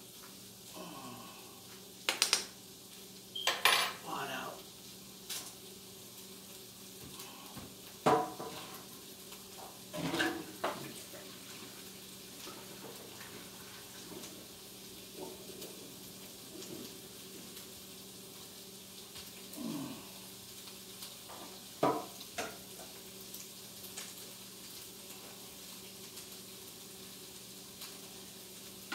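Metal utensil and saucepan being handled: scattered clinks and clanks, a few louder knocks in the first ten seconds and a couple more about twenty-two seconds in, over a faint steady hum.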